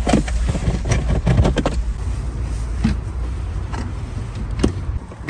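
A string of clicks and knocks from hand work on a car, over a steady low rumble that stops near the end.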